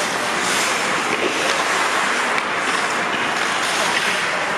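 Ice hockey rink ambience during play: a loud, steady hiss with no distinct hits or voices standing out.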